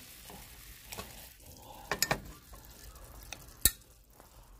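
Metal utensil stirring melting wax in a glass measuring cup, clinking against the glass a few times: a quick pair of clinks about two seconds in and a louder single clink near the end.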